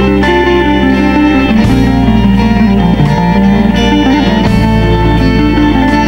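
Background music led by guitar, over held bass notes that change twice.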